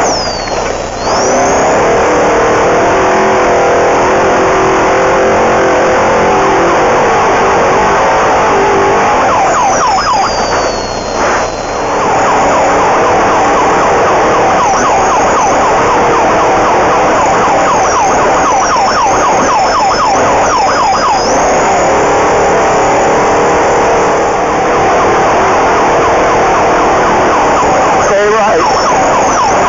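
Off-road race vehicle's engine running hard at speed, its whining note rising and falling with the throttle over heavy, continuous rough-terrain and wind noise.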